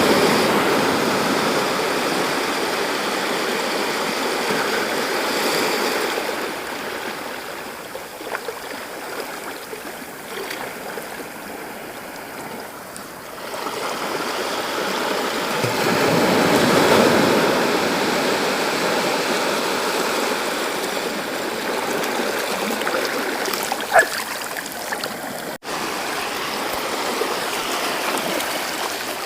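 Sea waves breaking and washing up a beach: a rush that swells at the start and again about a quarter of a minute in, with a quieter wash between. A short sharp click sounds once near the end, followed by a split-second dropout.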